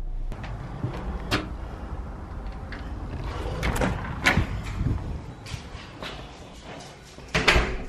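A door's lever handle and latch being worked and the door opened: a series of sharp clicks and knocks, the loudest cluster near the end.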